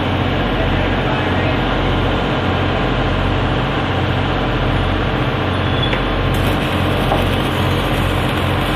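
A steady, loud mechanical drone with a low hum underneath, unchanging throughout.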